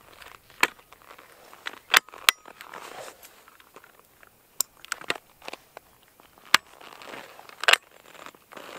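Ski-touring boots being locked into pin-tech touring bindings: sharp metallic clicks, about seven in all, as the toe pins snap into the boots and the binding parts are worked by hand, with soft crunching of wet, granular snow under the boots between them.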